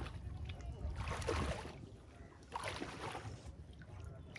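Water sloshing and swishing in repeated strokes, about one every second and a half, over a low rumble of wind on the microphone.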